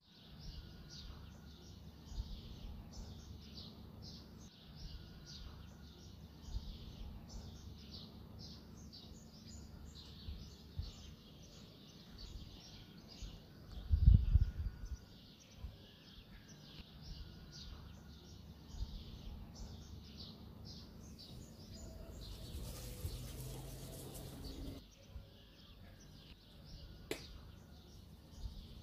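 Birds chirping steadily in the background while a knife cuts florets from a cauliflower head on a wooden cutting board, with soft knocks and snaps. A loud thump comes about halfway through, and a few seconds of hiss about three-quarters through.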